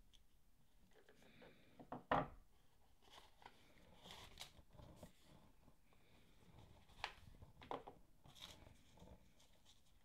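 Quiet handling noises from a small cardboard box with a foam insert and a camera quick-release unit being unpacked by hand: scattered soft rustles and knocks, the loudest a knock about two seconds in, with several sharper taps in the second half.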